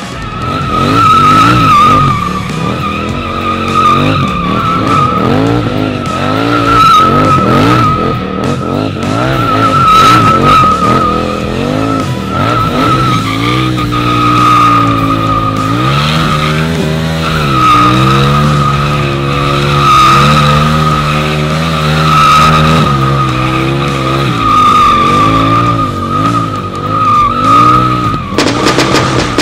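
KTM Duke motorcycle drifting on asphalt: the sliding rear tyre gives a continuous high, wavering squeal, while the engine revs rise and fall again and again, held high for several seconds midway.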